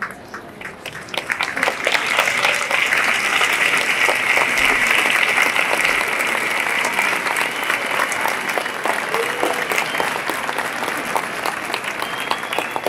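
A large outdoor crowd applauding, building up about a second in and thinning out near the end.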